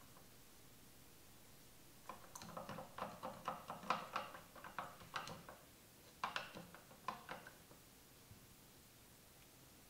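Wooden stirring stick knocking and scraping against the inside of a plastic jar as a thin oily liquid is stirred. There is a run of light, irregular knocks, several a second, from about two seconds in until about seven and a half seconds.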